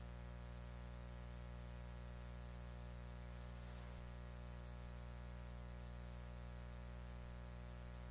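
Steady electrical mains hum with faint hiss on an otherwise empty audio feed, unchanging throughout.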